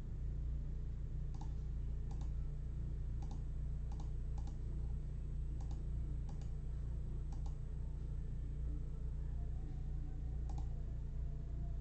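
About a dozen light, scattered clicks over a steady low hum.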